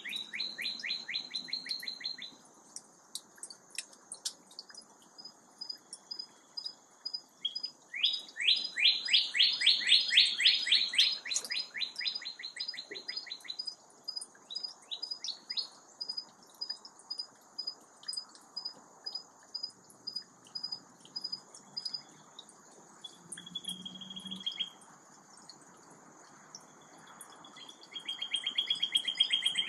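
Songbird dawn song: a fast trill of downward-slurred notes, repeated in bouts, loudest about eight seconds in and again near the end, with scattered short chips between. Under it run a steady high-pitched hum and a faint high note repeating a little more than once a second.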